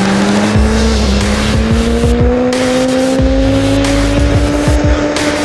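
Kawasaki ZX-10R inline-four engine heard onboard, pulling steadily up through the revs in one gear, its pitch rising slowly, over a constant hiss of wind and spray on a wet track.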